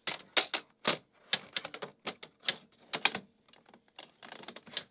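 Steel ball-bearing rack rail clicking and clacking against the aluminium case of a rack-mount Mac Pro as it is fitted onto the side mounting nubs: an irregular run of sharp metallic clicks, with a faint patter of small ticks near the end.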